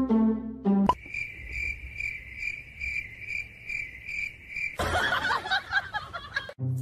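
Cricket chirping: a high tone pulsing evenly about two to three times a second for several seconds, then cut off by a second or two of rough rustling noise.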